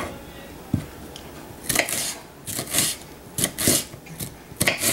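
Kitchen knife chopping red bell pepper strips into cubes on a wooden cutting board: a run of short, sharp blade strikes on the board at an uneven pace, about two a second.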